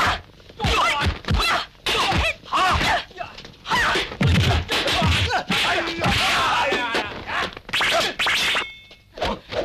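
Dubbed kung fu fight sound effects: a rapid series of punch and kick whacks, with short shouted yells from the fighters between the blows.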